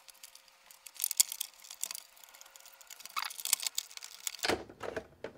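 Light plastic clicks and scrapes as fingers work at the hood of a scale RC truck body, feeling for how it opens. Near the end comes a louder bout of handling noise.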